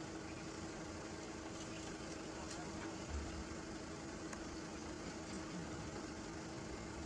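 An engine running steadily at idle, a constant hum with a few faint clicks over it.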